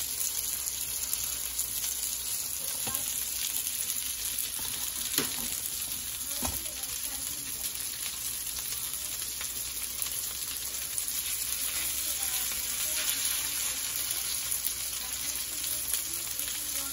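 Chicken kabab mixture sizzling steadily as it shallow-fries in a little oil in a skillet over medium heat. A few sharp taps of the spatula on the pan about three to six seconds in.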